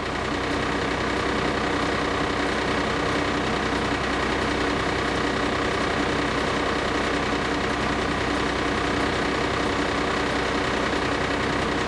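Fire apparatus engine running steadily at a constant pitch, a dense even mechanical hum.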